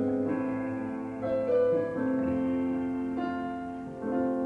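Live acoustic rock band music in an instrumental gap between sung lines: held keyboard chords that change about once a second.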